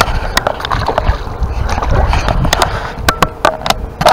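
Scattered sharp clicks and knocks in a small boat, over a steady low rumble.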